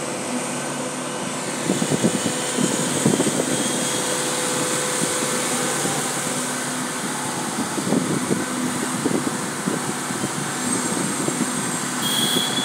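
Cement mixer machine's engine running steadily with a constant drone, broken by short spells of irregular knocking about two seconds in and again about eight seconds in.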